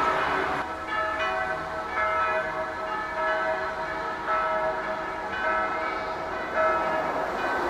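Church bells pealing, a fresh strike about every second, each one's tones ringing on into the next.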